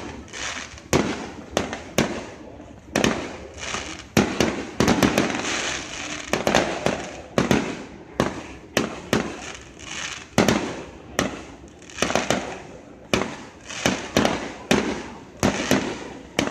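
Fireworks display: aerial shells bursting in quick succession, a sharp bang one to two times a second, with a noisy haze between the bangs.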